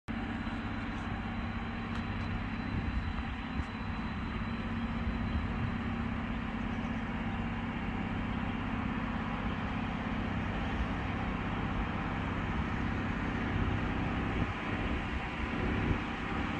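A steady low engine drone under an even hiss, from a vehicle that is out of sight.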